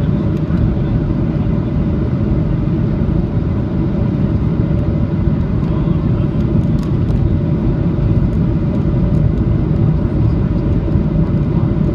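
Steady cabin roar inside a Boeing 737-800 on final approach: its CFM56 engines and the rush of air over the extended flaps, a deep even rumble with a steady hum above it.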